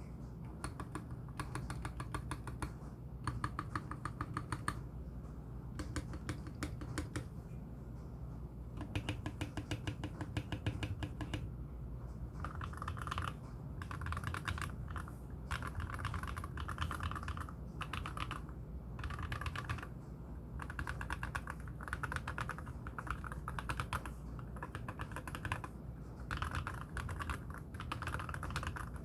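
Typing on a MelGeek Z70 Ultra mechanical keyboard with lubed KTT Wine Red switches and MA-profile spherical keycaps: runs of rapid keystrokes in bursts of a second or two with short pauses between. The keystrokes have a deep, woodblock-like sound.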